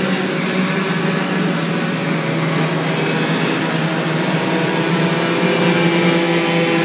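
Racing moped engines running on the track, a steady drone made of more than one engine pitch at once.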